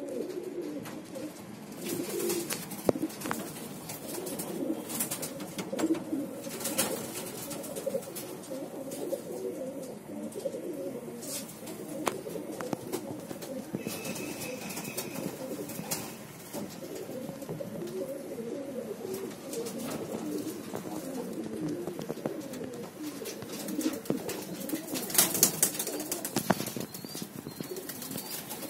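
Domestic pigeons cooing continuously in low, warbling rolls, with scattered sharp clicks. A cluster of louder sharp knocks comes about 25 seconds in.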